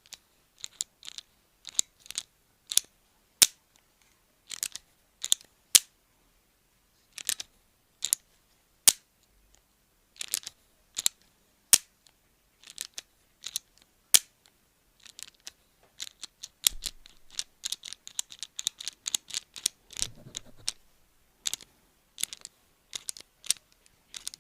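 Pliers-like hand tool opened and closed in the hand, making sharp clicks at irregular intervals, often in quick pairs, with a rapid flurry of lighter clicks from about 17 to 21 seconds in.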